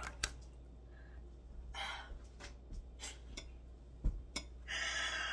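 A woman's breathy, stifled laughter into her hand, with a few light clicks and a soft thump about four seconds in.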